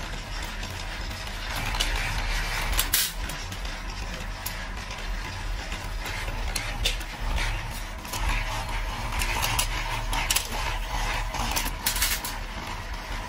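A small metal roller machine running with a steady low hum. Sharp metallic clicks and clanks sound now and then as thin metal strips are fed between its rollers.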